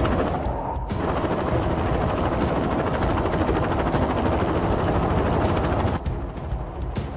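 Helicopter rotor chopping steadily, a rapid even beat of blade pulses. About six seconds in it turns duller and a little quieter.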